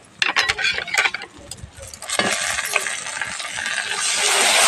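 Clinks and knocks of a steel bowl and spoon, then from about two seconds in a sizzle that grows louder as a water-soaked paste of powdered turmeric, cumin and coriander is poured into hot oil and fried onions in a kadhai.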